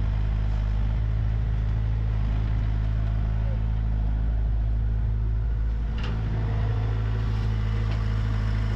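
Komatsu PC60 excavator's diesel engine running steadily as the machine works, digging, lifting and swinging a bucket of soil. A few short sharp knocks in the second half.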